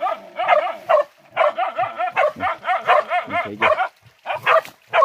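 Hunting dogs barking in rapid runs of about five barks a second, with short breaks about a second in and near four seconds.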